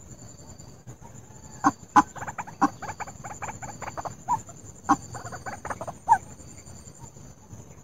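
White-breasted waterhen calling: a fast run of short, repeated clucking notes from about two seconds in until about six seconds, with a few louder, sharper notes among them.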